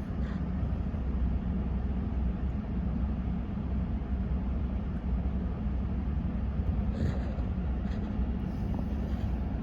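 Steady in-cab drone of a 2019 Ram 1500 idling, with the HVAC blower running at fan speed 5 on vent mode, blowing through the dash vents. A couple of faint clicks near the end.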